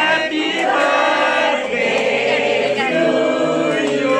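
A group of people singing a birthday song together, many voices holding notes in unison.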